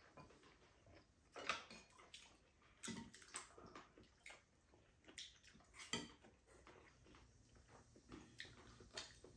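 Faint, scattered eating sounds: wet chewing and mouth smacks, with light taps of chopsticks and spoons on bowls and dishes.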